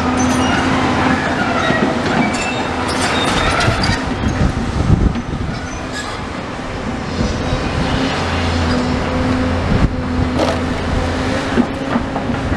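Tracked demolition excavator running steadily while its grab clatters and scrapes through brick rubble, with high metallic squeals in the first few seconds.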